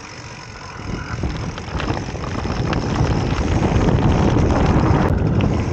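Wind buffeting the microphone of a camera mounted on a moving mountain bike, mixed with the knobby tyres and the bike rattling over a rough dirt path; the noise builds from about a second in, with many small knocks.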